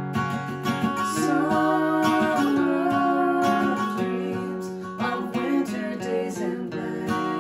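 Acoustic guitar strummed in a steady rhythm, with a man and a woman singing along; the voices come in about a second in.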